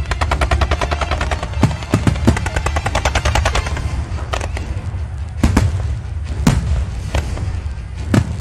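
Fireworks display: a rapid volley of many reports a second from a ground-level barrage, thinning about four seconds in to a handful of separate loud bangs, over a steady low rumble.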